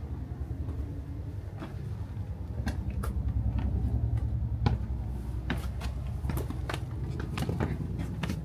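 Footsteps on stone stairs: irregular shoe taps and scuffs, the loudest a little under five seconds in, over a steady low rumble.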